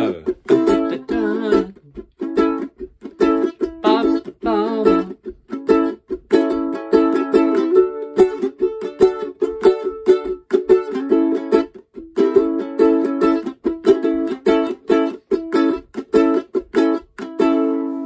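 Ukulele strummed in a steady reggae pattern, moving between A and D chords, with short muted percussive strokes between the ringing chords.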